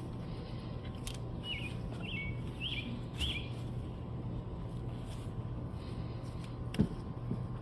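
A small bird chirping, four quick calls in a row about a second and a half in, over a steady low background hum, with one sharp knock near the end.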